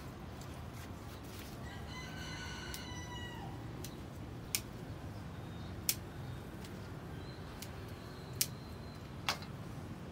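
A rooster crows once, a drawn-out call that drops in pitch at its end, about two seconds in. Then pruning shears snip through yardlong bean vines in several sharp clicks, four of them loud.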